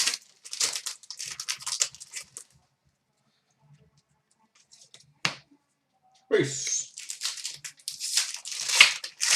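Wrapper of a hockey card pack being torn open and crinkled, in two bouts of rustling with a single sharp click about five seconds in.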